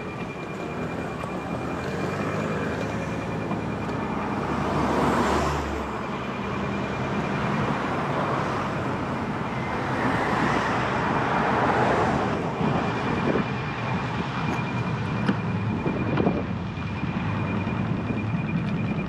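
Street traffic heard from a moving bicycle: a steady wash of road noise, with motor vehicles passing close about five seconds in and again around ten to twelve seconds in.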